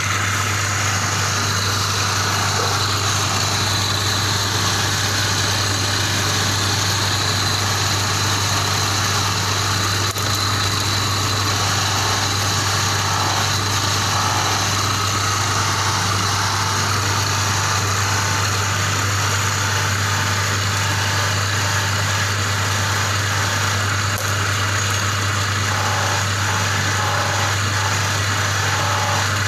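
Motor of a belt-driven stone-polishing machine running steadily, with a constant low hum.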